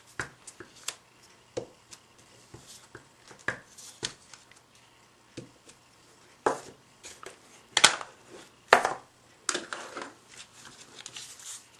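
Cardstock and paper craft pieces being handled on a work table: scattered light taps and clicks, with a few sharper knocks past the middle and a brief paper rustle near the end.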